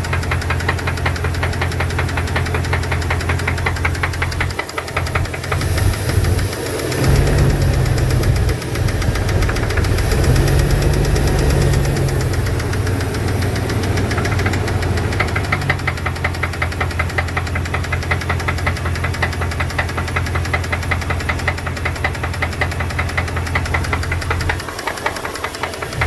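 A 2002 Dodge Dakota's 4.7-litre V8 running with a rapid, steady ticking knock, which the owner suspects is lifter tick or piston slap. The engine gets louder for a few seconds starting about six seconds in, then settles back.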